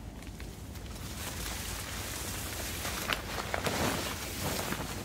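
Mylar emergency blanket crinkling and rustling as it is pulled up and gathered, building from about a second in and loudest in the second half.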